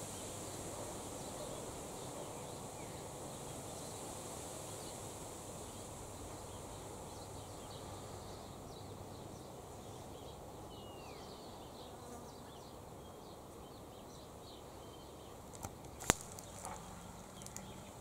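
Faint outdoor ambience of a steady insect buzz, with a few scattered faint bird chirps and a single sharp click near the end.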